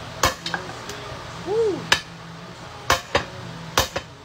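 Hammer striking a steel driveshaft yoke, about seven sharp metallic blows at an irregular pace, driving out a stubborn, tight U-joint.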